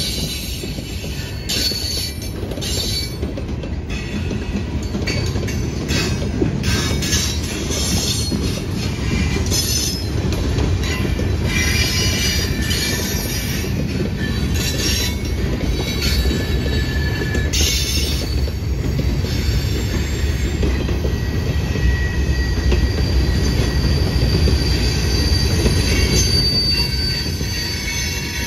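Freight train boxcars rolling past close by: a steady low rumble of steel wheels on the rails, with high-pitched wheel squeals and sharp clicks coming and going above it.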